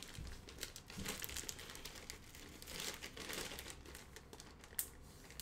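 Packaging crinkling and rustling as it is handled, with irregular faint crackles.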